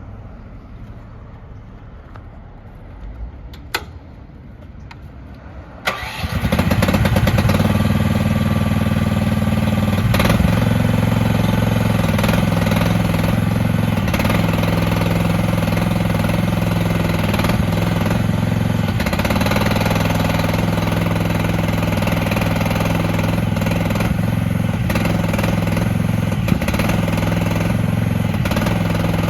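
Gas engine of a Diggit EM15 mini excavator being started: after a few quiet seconds and a single click, it catches and comes up to a steady idle that runs on.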